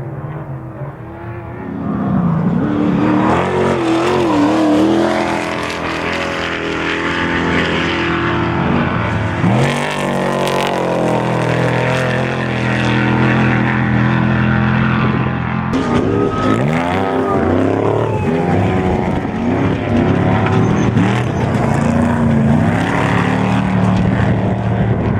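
Unlimited-class off-road race truck engine running hard, its pitch climbing and dropping with throttle and shifts. About two-thirds of the way through, the pitch sweeps down as the truck goes by.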